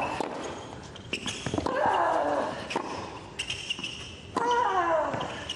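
Tennis rally on a hard court: sharp racket strikes and ball bounces, with a player's loud grunt on three of the shots, each one falling in pitch.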